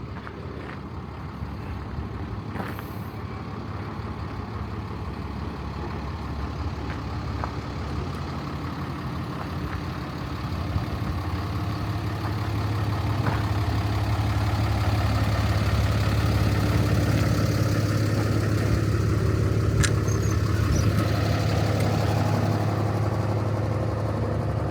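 Diesel engine of a 2017 Peterbilt 337 box truck, a Paccar PX-7 inline-six, idling steadily. It grows louder about halfway through.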